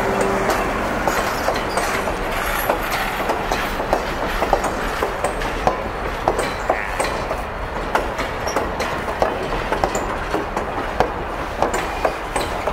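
Railroad passenger coaches rolling past close by, their steel wheels clicking and clanking irregularly over rail joints above a steady low rumble.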